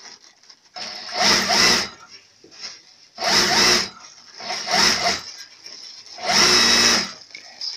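Thin plastic carrier bag rustling and crinkling as folded clothes are handled and packed into it, in four bursts of about a second each.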